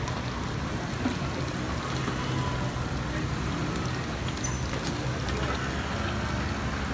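Takoyaki batter sizzling steadily in the round moulds of a hot takoyaki griddle, with background voices.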